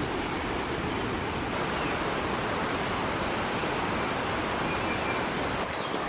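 Steady rush of flowing water, an even hiss-like roar with no breaks.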